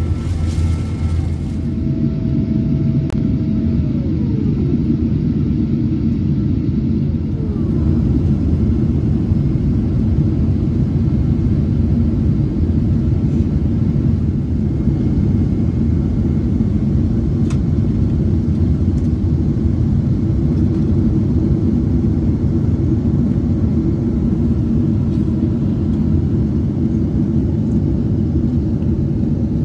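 Steady, low-pitched engine and airflow noise of a Boeing 777-200 airliner on its landing approach, heard inside the passenger cabin. A few seconds in, two brief whines fall in pitch over the steady noise.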